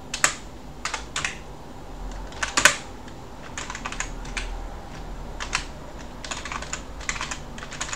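Typing on a computer keyboard: irregular keystrokes in short runs, with one louder keystroke about two and a half seconds in.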